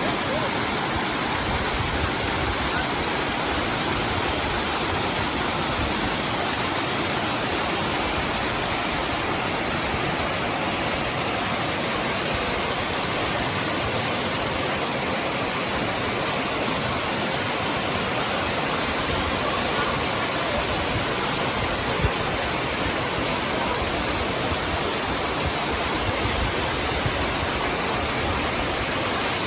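Small waterfall and stream rushing over a rock slab, a steady, even roar of falling water, swollen by recent rain.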